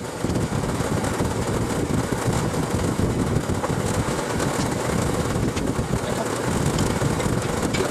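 A large drum fan running close by, a steady rush of moving air with a faint hum in it.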